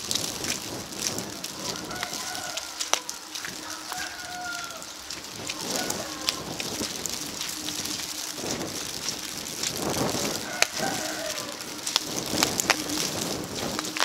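Wet snow and sleet falling on a wet street: a steady patter with many sharp ticks of drops and flakes landing close to the microphone.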